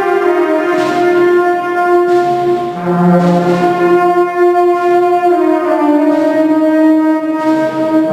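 Wind band playing a slow Holy Week processional march: sustained brass chords that change every couple of seconds, with a low bass note entering about three seconds in.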